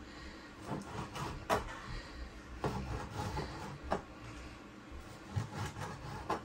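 Chef's knife cutting raw red snapper fillet into chunks on a plastic cutting board: a series of sharp knocks as the blade hits the board, roughly one every second or so.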